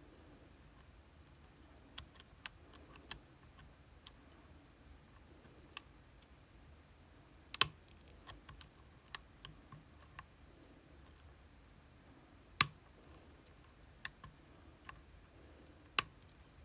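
Irregular small clicks and ticks of a Vachette V-DIS+ lock being worked with picking tools, a few sharp louder clicks standing out among faint ones.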